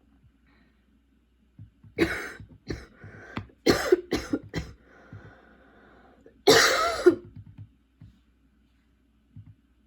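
A young woman's coughing fit from a persistent cough: a quick run of about six coughs, a short quieter pause, then one longer, louder cough.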